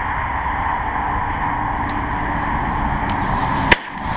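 A single shotgun shot about three and a half seconds in, sharp and much louder than anything else, over steady background noise that drops out for a moment right after the blast.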